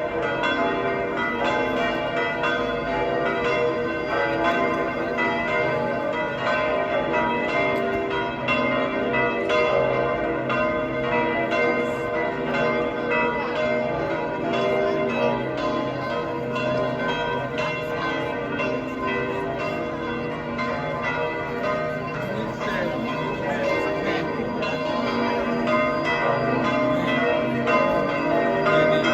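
The bells of St. Peter's Basilica in the Vatican pealing together, loud and continuous: several bells of different pitches striking over one another in a dense, unbroken peal.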